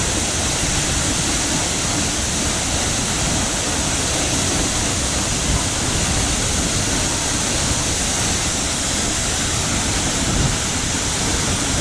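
Steady rushing of the Sikulikap waterfall: a continuous, loud water noise with no breaks.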